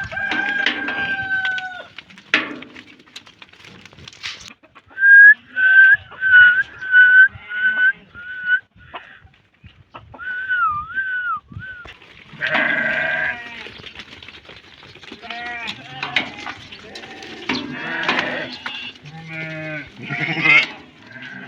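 Goat kids bleating over and over. There is a long call at the start, then a run of about seven short, loud, high calls in quick succession, a wavering call after them, and more bleats to the end.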